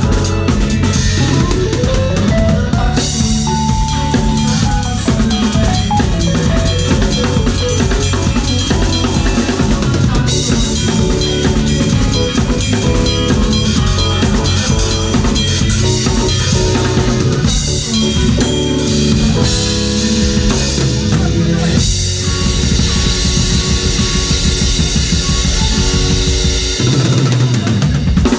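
Band playing live with a drum kit, kick, snare and cymbals driving a steady beat, under pitched keyboard and electric guitar parts. The music ends on a held low final note near the end.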